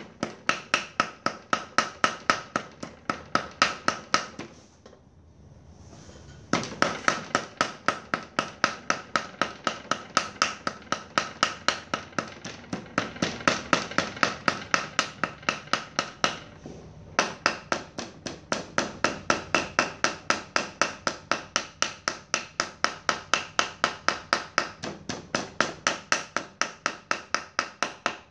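A kitchen knife mincing small fish on a round wooden chopping block: fast, even chops of the blade striking the wood, about four a second. The chopping stops for about two seconds some five seconds in, and briefly again a little past the middle.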